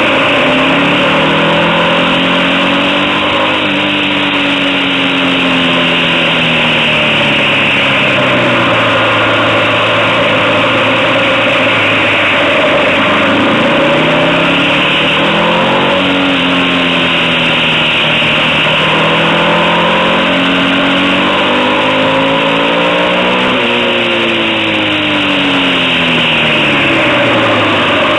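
Motorcycle engine running under way, its revs falling and rising several times through the bends, with a steady rushing noise over it.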